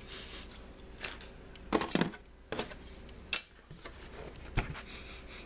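Cardboard model-kit box and its inner tray being handled: a few scattered light knocks and rustles of card against the cellophane-wrapped plastic sprues.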